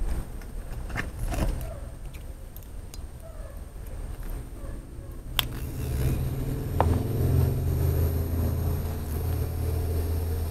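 Small metal tattoo machine being handled with gloved hands: sharp clicks and knocks of its parts, with a steady low hum coming in about halfway through.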